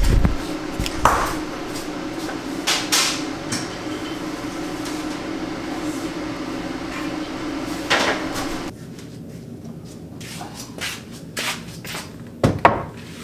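A steady low hum with scattered knocks and clicks, then a quieter room where a wooden board is handled at a mitre saw that is not running, knocking against the saw's table and fence. The loudest is a sharp double knock near the end.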